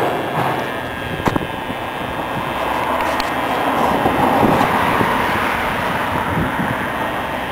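Engine running steadily, swelling slightly around the middle, with a sharp metallic clank about a second in.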